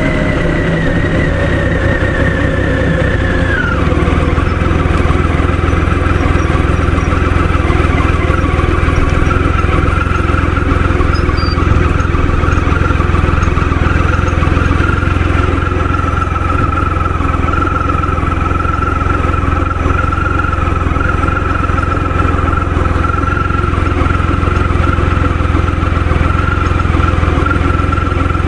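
Motorcycle engine falling in pitch as it slows over the first few seconds, then idling steadily with a constant high tone over a low rumble.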